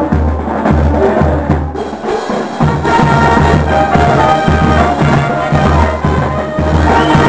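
Marching brass band playing: sousaphones, trumpets and trombones over a steady bass-drum beat, with snare drums and cymbals. The band thins out briefly about two seconds in, then comes back in at full strength.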